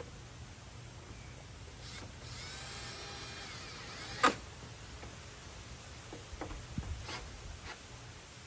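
Power drill/driver whirring for about two seconds as it drives in a headlight assembly mounting fastener, followed by a single sharp click, with a few light knocks later.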